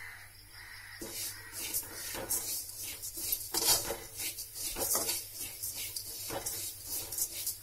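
A metal spoon stirring rice in a metal cooking pot, with repeated scraping and clinking strokes against the pot that start about a second in.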